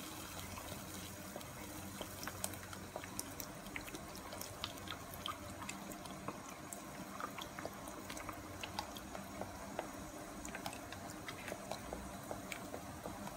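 Water heating in a pot on the stove and coming to the boil: a faint steady hiss with many small scattered pops and ticks of forming bubbles, while cooking oil is trickled into the water.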